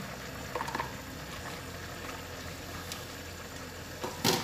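A pot of chicken feet adobo bubbling steadily at the boil, with long beans just stirred in. A sharp knock comes near the end as the spatula works the pot.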